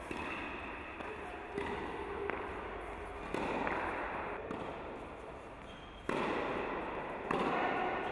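Tennis racket strikes and ball bounces on an indoor tennis court over steady hall noise, which jumps in level suddenly a few times.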